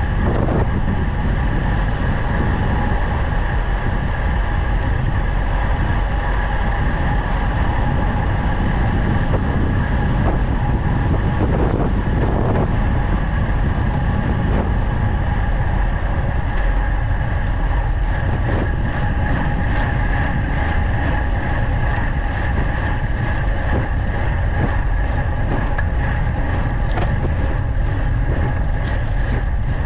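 Wind rushing over the microphone and tyre noise from a road bike descending at speed, a steady rumble with a constant hum. Scattered light ticks come in over the second half.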